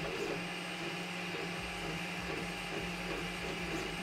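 Geeetech MeCreator 2 3D printer at work: its stepper motors buzz in short tones that shift in pitch as the print head moves, over the steady whir of the cooling fan.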